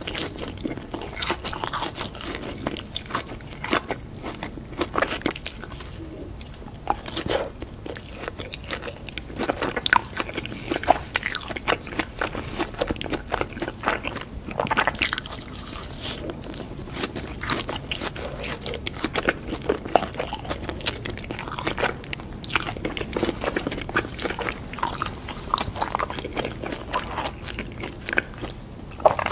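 Close-miked biting and chewing of crunchy crumb-coated fried corn dogs with stretchy melted cheese inside: a dense, irregular run of crisp crackles and crunches with chewing between bites.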